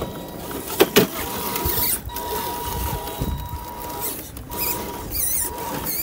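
Electric motor and gear train of an RC scale crawler whining steadily as it crawls over rocks. The whine drops out briefly twice as the throttle eases, and there are a couple of sharp knocks about a second in as the tyres and chassis bump over stone.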